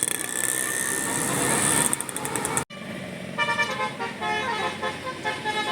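Street and vehicle noise with a faint steady tone, cut off abruptly about two and a half seconds in. After the cut a bus's multi-tone telolet basuri horn plays a quick tune, several notes sounding together and stepping up and down in pitch.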